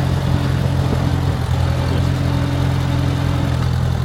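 1949 Farmall Cub's four-cylinder flathead gas engine running steadily.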